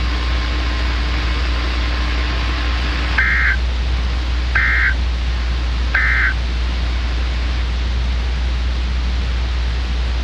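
Emergency Alert System end-of-message code: three short two-tone data bursts about a second and a half apart, over a steady hiss and a low hum.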